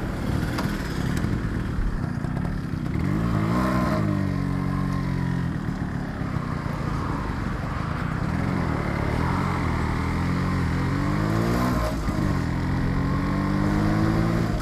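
Yamaha RX135's two-stroke single-cylinder engine pulling away and accelerating through the gears. The revs climb and then dip sharply at each gear change, several times over.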